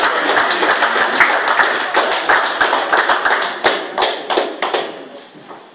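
A roomful of people applauding. The clapping is dense at first, then thins to scattered claps and fades away near the end.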